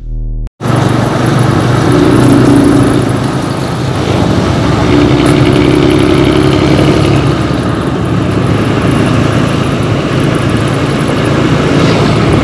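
Intercity bus's diesel engine running loud through a deep, rough 'ngorok' (snoring) aftermarket exhaust, starting sharply about half a second in. Its drone swells twice.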